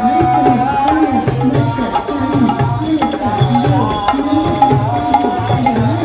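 Devotional kirtan music: a hand drum plays a steady rhythm of bass strokes that bend in pitch, about two a second, under a sustained, wavering melody line.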